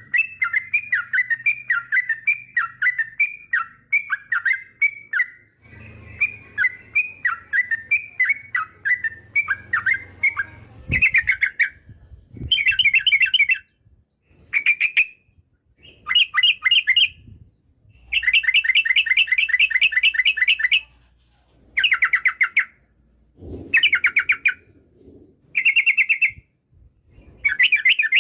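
Yellow-vented bulbul (trucukan) calling: a quick run of short, downward-slurred notes, two or three a second. From about eleven seconds in it changes to bursts of fast chattering phrases, each a second or two long, with short pauses between.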